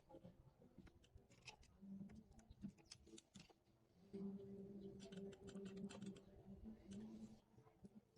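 Faint scattered small clicks and light scraping, with a faint low hum from about halfway in to near the end.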